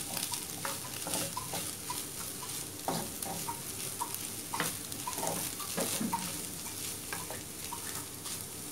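Wooden spatula stirring and scraping squid-and-coconut stir-fry in a frying pan, in irregular strokes over a steady sizzle.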